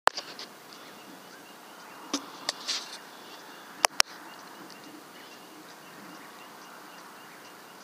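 Quiet outdoor night ambience in a field: a steady low hiss with faint, regular high chirping. A few sharp clicks stand out, the loudest two close together about four seconds in.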